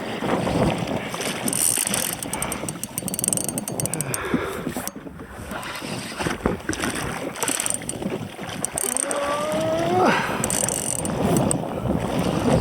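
Fishing reel being cranked against a heavy fish, its gears clicking steadily as a large shark is pumped up under tightened drag. A short rising groan sounds near the end.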